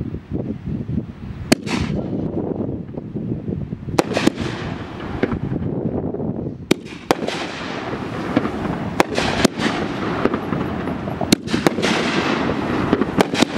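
A consumer aerial firework cake on the ground firing its shells one after another: about a dozen sharp bangs at uneven spacing, some in quick pairs, over a continuous hiss and crackle.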